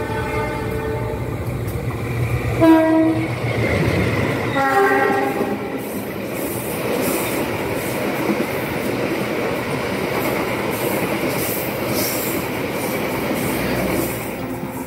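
Passing KA Argo Wilis express train: its locomotive horn sounds three times as it approaches, a longer blast, a short loud one and another longer one. Then its carriages rush past close by on the adjacent track for about nine seconds, wheels clattering over the rails, easing off near the end.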